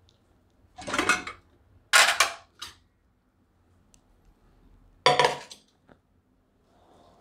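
Metal cookware clanking as a pressure cooker and a steel pot are handled and set down on a stone countertop: three short clanks, about one, two and five seconds in, the last two the loudest.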